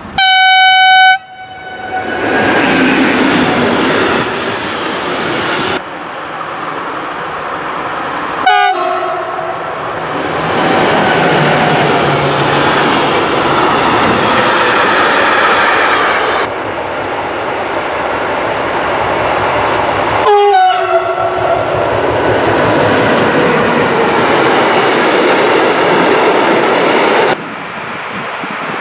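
A loud train horn blast about a second long at the start, then trains passing close on the rails: the steady rolling noise of freight wagons with some clickety-clack. Twice a horn sounds briefly as a train goes by, its pitch dropping, and the sound changes abruptly at cuts between passes.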